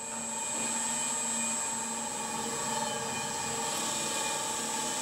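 A workshop machine running with a steady hum and a thin high whine.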